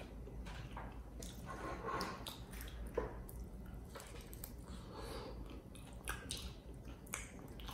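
Close-up eating sounds of biting into and chewing a barbecue-sauced fried chicken wing: quiet wet chewing with small scattered clicks.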